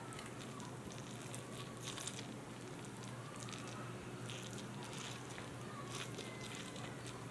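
Fingers pressing grated fresh ginger into the middle of an onion: faint, irregular soft squishes and small crunches.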